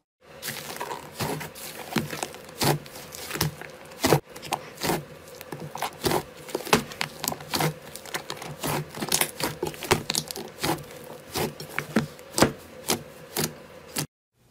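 Hands kneading and pressing a large mass of thick slime in a glass bowl, making irregular sticky pops and clicks, several a second.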